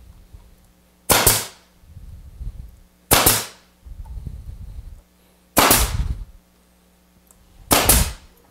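Grex 1850GB pneumatic 18-gauge brad nailer firing four times, about two seconds apart, driving brads into plywood.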